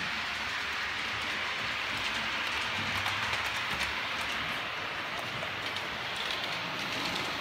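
OO gauge model trains running on the layout: a steady whirring hiss of small motors and wheels on the track, with a slightly stronger low rumble a few seconds in.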